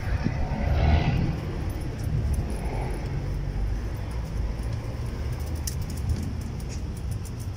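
Street traffic: a steady low rumble of passing cars and buses, a little louder about a second in.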